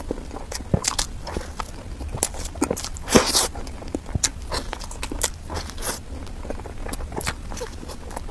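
Close-miked eating sounds of a person chewing cake: a run of wet mouth clicks and smacks, with one louder, longer smack about three seconds in.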